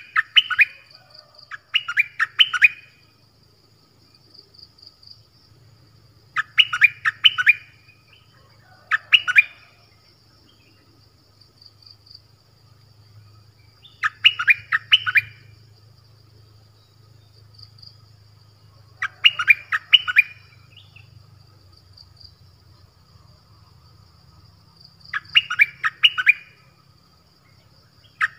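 Lure-call recording of the songbird known in southern Thailand as nok dok taeng (นกดอกแตง): short loud phrases of three or four quick chirping notes, repeated about every two to six seconds.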